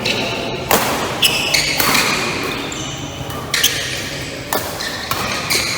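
Badminton rally: a shuttlecock struck back and forth with rackets in a series of sharp hits, with short high squeaks of shoes on the court floor, echoing in a large hall.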